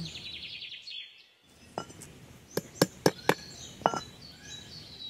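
About six sharp knocks, irregularly spaced, starting about two seconds in. Birds chirp at the start and again near the end.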